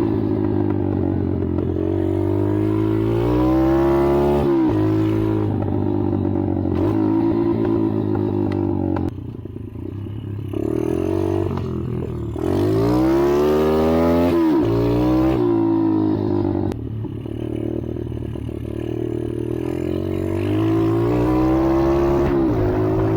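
ATV engine being ridden hard: the pitch climbs as it revs up, drops sharply at each gear change, and eases off for a moment near the middle before pulling again.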